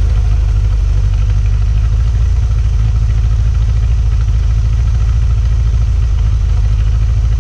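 Mercruiser 130 hp four-cylinder sterndrive engine running steadily with a fast, even low pulse, while antifreeze is pumped through its cooling system to winterize it.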